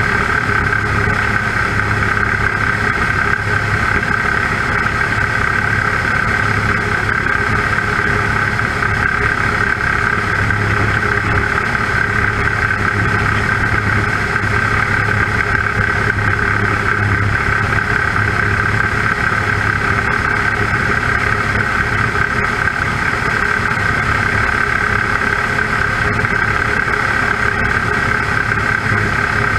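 Avian Adventurer homebuilt light aircraft's engine and propeller running steadily in cruise flight, a constant drone with no change in pitch, picked up by a GoPro mounted on the outside of the airframe.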